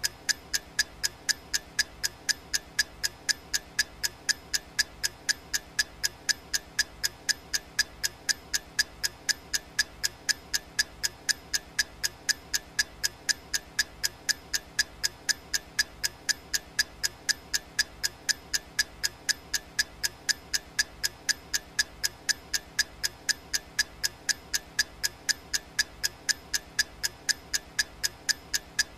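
Clock ticking, an even, sharp tick about twice a second, keeping time for a countdown timer.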